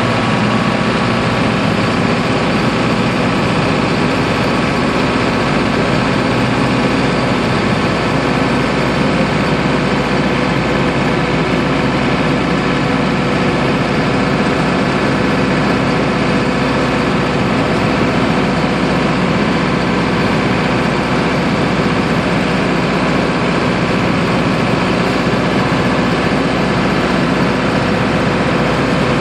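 Land Rover 109 fitted with a 2002 Defender turbo diesel engine (a Td5 five-cylinder), running steadily while driving along. It is heard inside the cab together with road and drivetrain noise, with no gear changes or rev swings.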